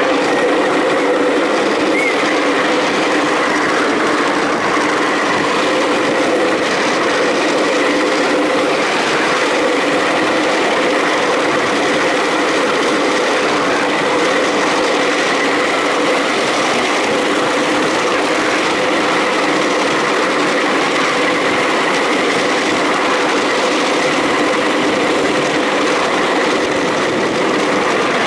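Ridable miniature railway train running steadily along the track: a constant whine from the small locomotive over the running noise of the wheels on the rails.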